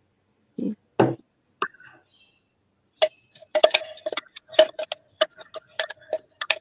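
Metal blender jug knocked repeatedly against the rim of a small wok to shake out the last of a thick blended sauce. A quick, uneven run of sharp ringing knocks starts about three seconds in, after a couple of softer thumps.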